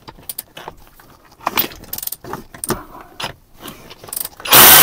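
Socket ratchet on a 14 mm seat-rail bolt clicking irregularly as it is fitted and worked. About four and a half seconds in, a power tool starts running loudly and steadily.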